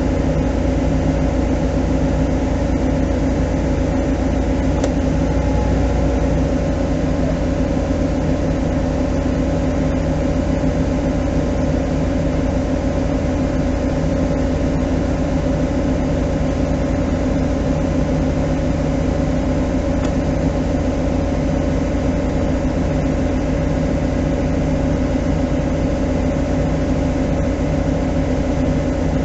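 Fire engine's engine running steadily as a low, unchanging drone, heard from inside its cab, while it supplies water to the hose line.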